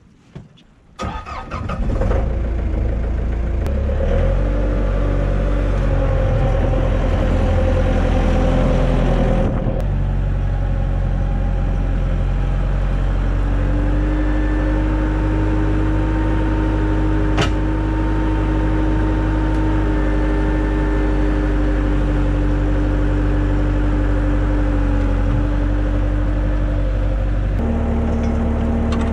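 Bobcat compact track loader's diesel engine cranking and starting about a second in, then running steadily. There is a single sharp click about two-thirds of the way through, and the engine note changes near the end.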